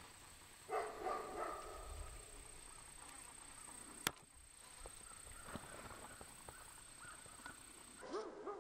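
Maremma sheepdog barking at a distance: a short run of deep barks about a second in, and more barks starting near the end, over a steady high-pitched whine. A single sharp click about four seconds in.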